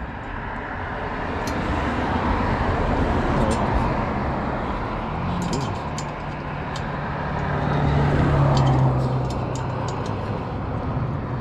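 Small motorized bike engine idling with its exhaust loose, its pitch rising and swelling briefly about eight seconds in, with a few light metallic clicks over it.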